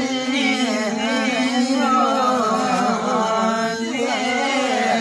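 A group of voices singing a Limbu palam, the traditional chant-like song of the hand-in-hand paddy dance. The notes are long and wavering, and the singing runs on without a break.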